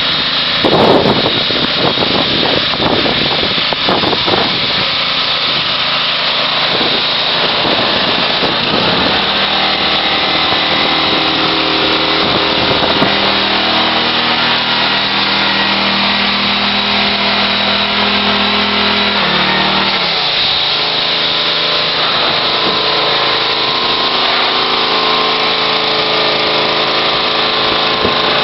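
Gas-engine pressure washer running while its wand blasts water against house siding and a gutter: a steady hiss of spray over the engine's hum, the engine note shifting now and then.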